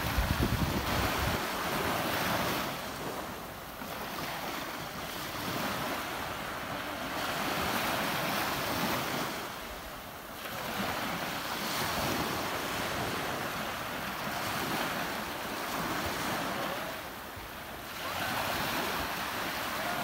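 Ocean waves breaking and washing on the shore: a continuous surf hiss that swells and ebbs about every seven seconds.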